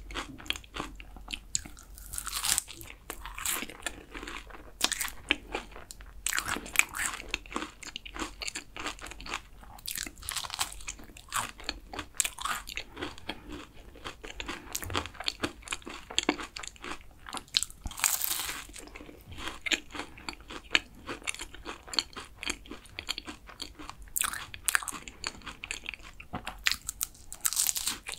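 Close-miked chewing of flaky kouign-amann pastry: crisp crunches and crackles as the caramelised layers break, with wet chewing between.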